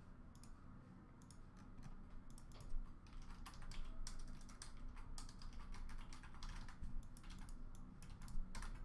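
Typing on a computer keyboard: quick, irregular key clicks, fairly faint, over a low steady hum.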